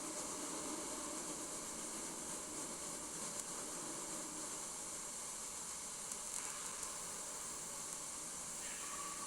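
Steady, even hiss, with faint brief sounds about six and a half and nine seconds in.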